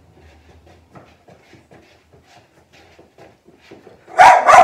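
A dog barks loudly twice near the end, after a few seconds of faint rustling and small knocks.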